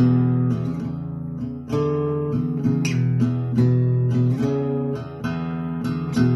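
1970s EKO Folk Blues parlor acoustic guitar being strummed, chord after chord, each ringing for a moment before the next.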